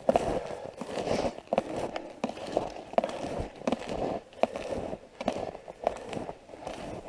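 Footsteps crunching through snow at a steady walking pace.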